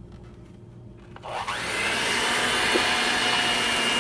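An electric mixer beating a cream cheese mixture at medium-high speed. It switches on about a second in and comes up to a steady running whine.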